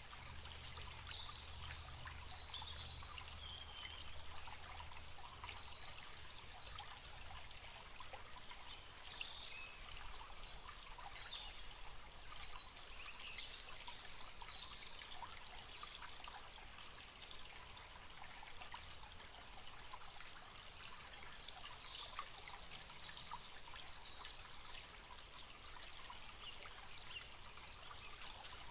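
A forest stream trickling steadily, with small birds chirping in short calls over the water throughout.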